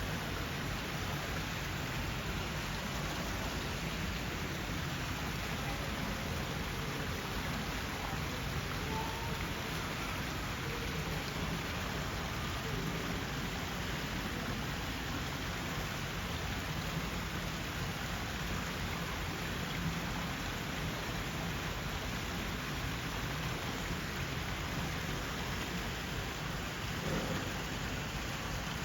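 Steady rushing noise of falling water, even and unbroken, with a low rumble underneath.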